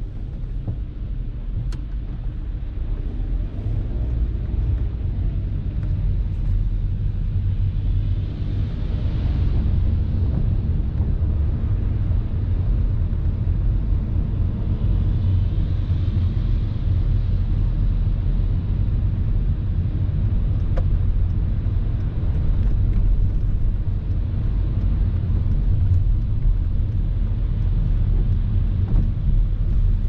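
Steady low rumble of road and engine noise inside a moving car, with a fainter hiss of tyres on the wet road that swells a little now and then.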